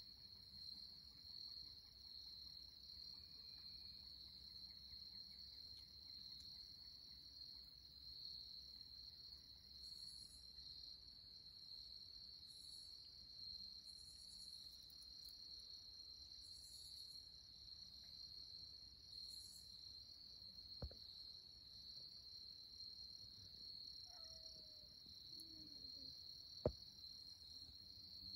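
Faint, steady high-pitched trill of crickets, unbroken throughout. A couple of sharp clicks come in the last few seconds.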